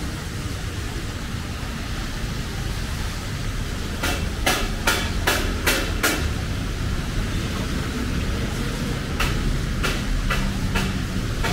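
Steady rumble of city street traffic, with a quick run of about six sharp knocks about four seconds in and a few more near the end.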